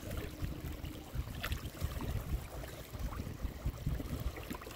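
Lakeshore background: an uneven low rumble of wind buffeting the microphone over small lake waves lapping at the shore, with one faint click about one and a half seconds in.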